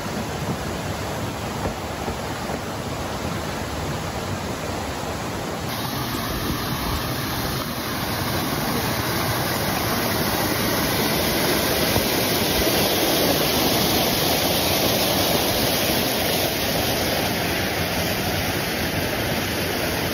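Steady rushing noise with no distinct events; it changes abruptly about six seconds in and is a little louder after that.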